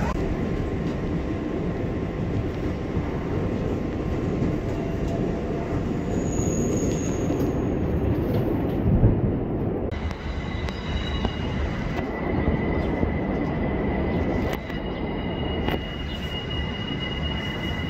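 New York City subway trains on elevated track: a continuous heavy rumble of steel wheels on the rails. About halfway through, a high, steady wheel squeal sets in over the rumble, from wheels grinding around a curve.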